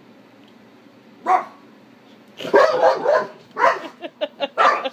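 Belgian Malinois barking: one short bark about a second in, then a rapid string of loud barks from about two and a half seconds in.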